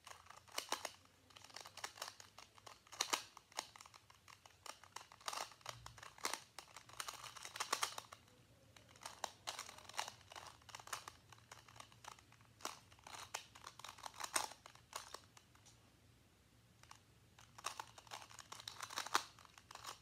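Plastic twisty puzzle cube being turned fast by hand: quick runs of clicking and clacking from the pieces, in bursts with short pauses, quieter for a couple of seconds near the three-quarter mark.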